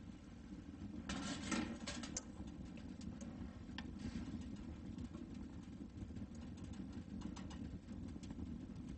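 Wood fire burning in a small metal tent stove, with faint crackling and ticking. About a second in, a short run of metallic clinks and knocks as a cooking pot is set on the stove top.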